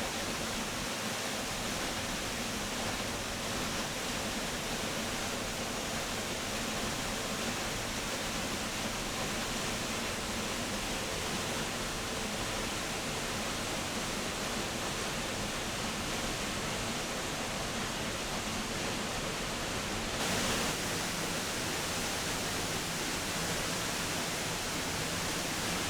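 Steady rush of falling water from Minnehaha Falls, an even hiss with no pauses, swelling slightly for a moment about twenty seconds in.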